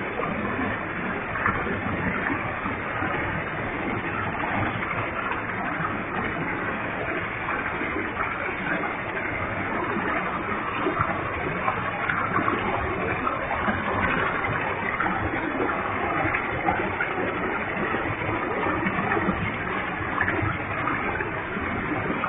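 Waterfall with a heavy flow of water, a steady rush of falling water and spray.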